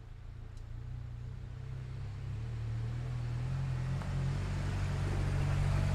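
A motor vehicle's engine running, its pitch stepping up slightly about two seconds in as it grows gradually louder.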